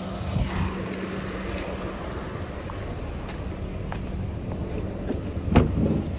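A car running: a steady low hum and road or engine noise, with a sharp thump about five and a half seconds in.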